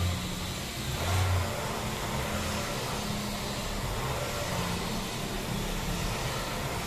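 A low, steady engine-like drone that swells and fades slightly, over a continuous noisy background.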